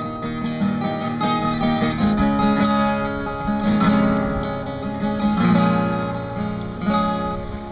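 Acoustic guitar strummed and picked in a steady rhythm, playing an instrumental break between the sung verses of a folk song.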